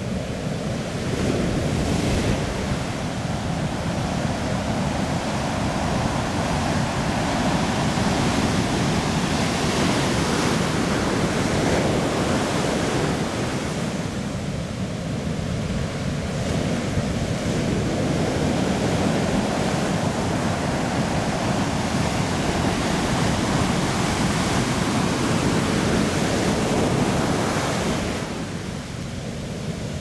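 Ocean surf breaking and washing toward the beach: a continuous rush of white water that swells and eases as the waves come in. It is quieter for a moment near the middle and again near the end.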